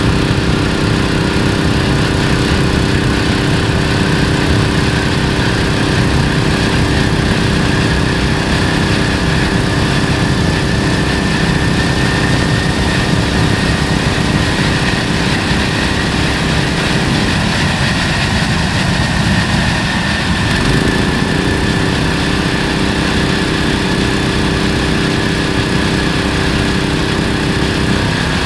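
Homebuilt gas turbine jet engine running at about idle: a loud, steady roar with a whine that rises slightly and eases back. Under it is the steady drone of the small petrol engine that drives the starter belt, which breaks off for a few seconds past the middle.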